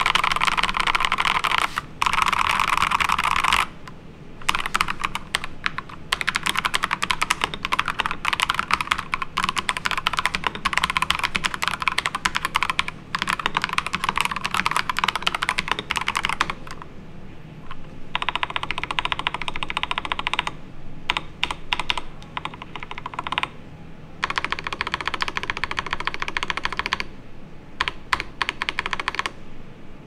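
Akko 3098B mechanical keyboard with Akko CS Silver linear switches and PBT double-shot keycaps, factory-dampened with silicone foam in the case and EVA foam between plate and PCB, being typed on fast. The keystrokes clatter in long runs broken by short pauses, unprocessed.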